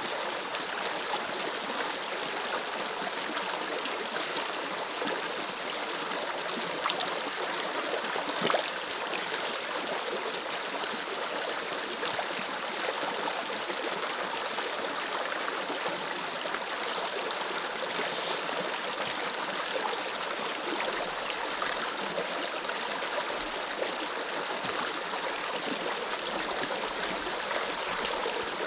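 Shallow stream water trickling and flowing steadily, with a couple of small splashes from hands working in the water about seven and eight and a half seconds in.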